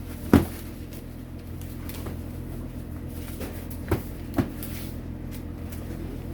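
Three sharp knocks, the first the loudest and the next two close together a few seconds later, over a steady low machine hum.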